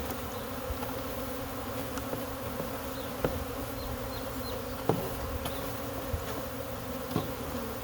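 A swarm of honey bees flying in the air around the hive, a loud, dense, steady buzzing. A few short knocks come about three, five and seven seconds in.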